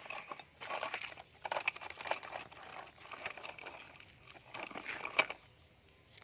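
Broken brick pieces knocking and scraping in the plastic bed of a toy dump truck as it is loaded and shifted over gritty ground by hand: a run of irregular clicks, scrapes and crunches, the sharpest a little after five seconds in, then it goes quiet.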